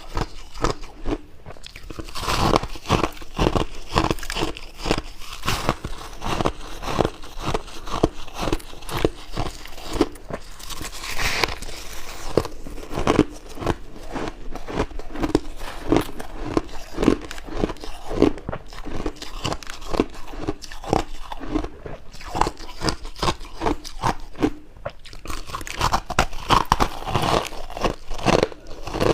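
Close-miked biting and chewing of chunks of shaved ice: a dense, irregular run of sharp crunches.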